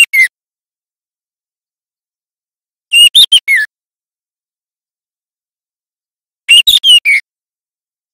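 Juvenile male white-rumped shama singing: short phrases of four or five quick whistled notes, the tail of one phrase at the start and two more about three and a half seconds apart. It is a young bird learning its song.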